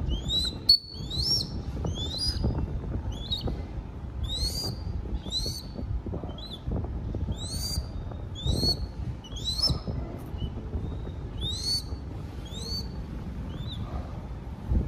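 Crested goshawk chick giving repeated short, high, rising begging calls, about one or two a second, while being hand-fed. A brief sharp knock sounds just under a second in, over a low steady rumble.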